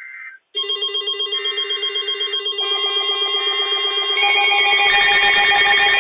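Several weather alert radios sounding their alarms together as a new warning comes in on the NOAA weather radio. They beep rapidly, and more tones join over a few seconds, growing louder.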